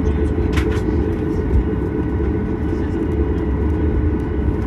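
Steady cabin rumble of a Boeing 737 MAX 8 heard from a window seat, its CFM LEAP-1B engines running at low power with an even hum and no change in pitch.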